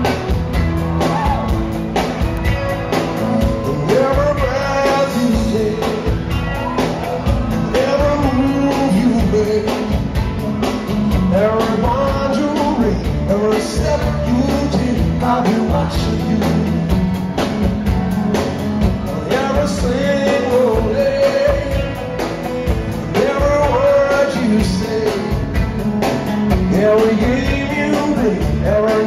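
A live rock band playing a song: a male lead voice singing over electric bass and a drum kit, at a steady moderate tempo.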